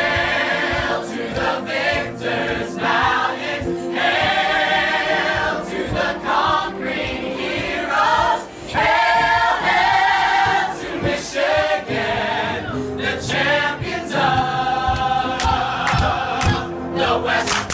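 Music with a choir singing over held accompaniment.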